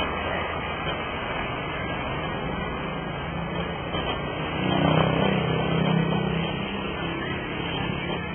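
Steady outdoor street noise with a low droning hum that swells about halfway through and fades again.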